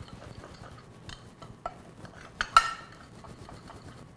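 A metal fork stirring flour and spices in a glass baking dish: light scrapes and scattered taps of metal on glass, with one sharper ringing clink about two and a half seconds in.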